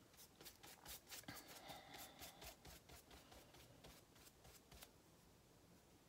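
Faint, quick scratchy strokes of a wet watercolour brush across textured cold-pressed cotton watercolour paper, wetting the paper for a wet-on-wet wash. The strokes come several to the second and stop about five seconds in.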